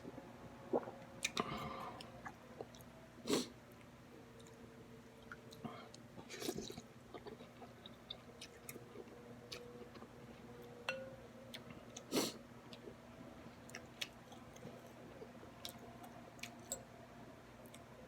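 A person chewing pho close to the microphone: soft, wet mouth clicks and smacks, with a few louder brief sounds at about one, three, six and twelve seconds in.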